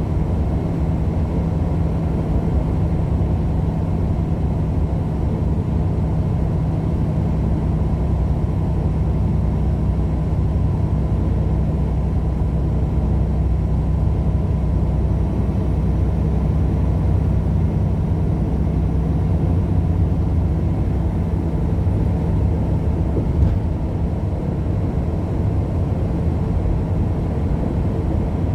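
Steady engine and road noise inside a moving vehicle's cabin at constant speed: a low, even rumble.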